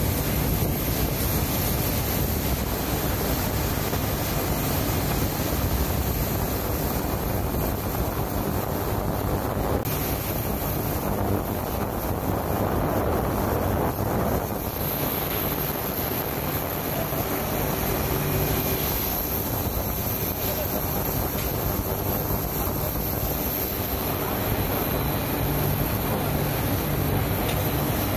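Steady running of an automatic ultrasonic cutlery cleaning and drying line: machine hum mixed with rushing, splashing water, and a thin, steady high-pitched whine.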